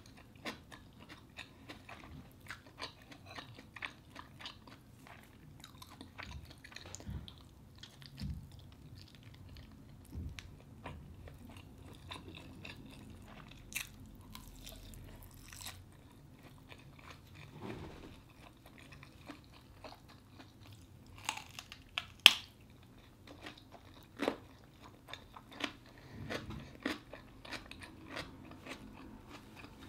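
Close-up eating sounds: a person chewing and biting into grilled sausage, with scattered short wet clicks and crunches. The loudest is a sharp click about three-quarters of the way through.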